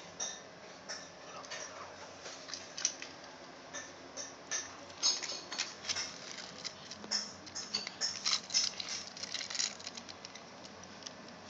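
Small die-cast toy cars being handled and pushed about, giving a string of light, irregular clicks and clacks, busiest from about five to ten seconds in.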